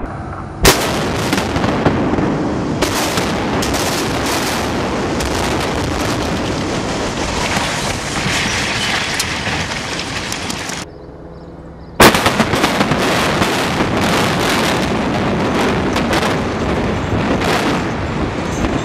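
Explosive building demolition: a sharp blast about a second in, then a long rumble of collapsing structure with many cracks and crashes of falling debris. The sound drops off briefly near the middle, then a second sharp blast starts another collapse rumble full of debris crackling.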